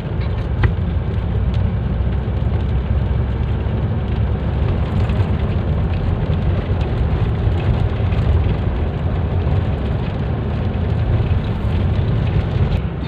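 Steady engine and road noise of a vehicle driving on wet roads in the rain, heard from inside the cabin, with a low drone under a constant hiss and one small click about half a second in.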